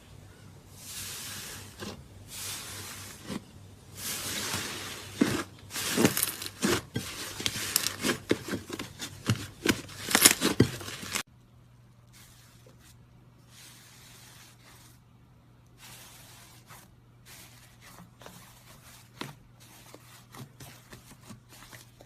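Slime being squished and pressed by hand, with dense crackling pops and sticky squelches. About halfway through it cuts suddenly to a much quieter stretch of soft handling over a steady low hum.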